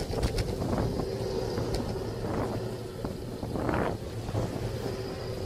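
Wind rushing over a bicycle-mounted camera's microphone, with road rumble and motor traffic nearby. One vehicle swells louder just before four seconds in as it draws alongside.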